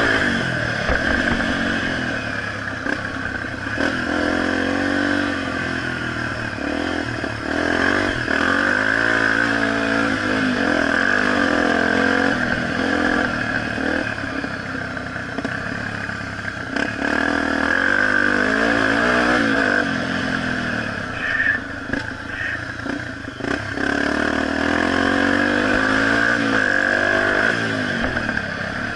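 Honda XR250 Tornado's single-cylinder four-stroke engine, heard from an onboard camera, revving up and falling back again and again as the bike is ridden around a dirt motocross track. A few knocks come about three-quarters of the way through.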